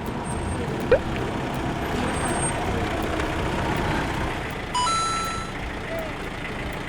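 Steady outdoor background noise with a vehicle-like hum. A short squeak about a second in, and a brief electronic beep that steps up in pitch about five seconds in.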